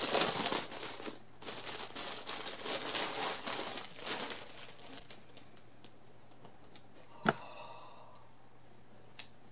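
Packaging crinkling and tearing as a t-shirt is unwrapped, loud for the first four seconds or so, then dying down to light rustling and scattered small clicks, with a sharp click about seven seconds in.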